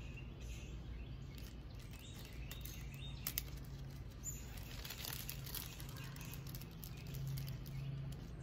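Thin plastic zip-top seed bag crinkling and rustling in the hands as seeds are picked out of it, with one sharp crackle about three seconds in. A steady low hum runs underneath.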